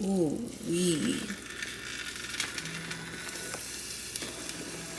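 T-bone roast in broth cooking in an open slow cooker: a soft, steady crackling sizzle with scattered small clicks, a sign that the pot is hot and simmering.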